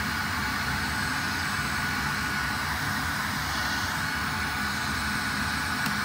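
Shark Vertex cordless vacuum's handheld unit running with nothing attached: a steady high motor whine over rushing airflow.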